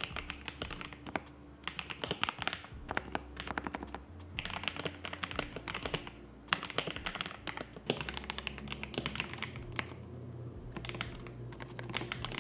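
KBD67 Lite R3 mechanical keyboard being typed on, in quick runs of keystrokes a second or two long with brief pauses between. It is a modded board with a soft key sound that is pleasant to the ear.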